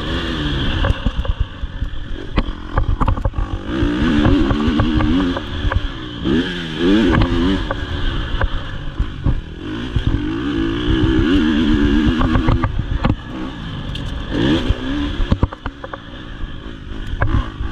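Motocross bike engine heard from on the bike, revving up and dropping back again and again through the corners and straights, with a quieter off-throttle stretch near the end. Frequent knocks and clatter from the bike running over the rough dirt track.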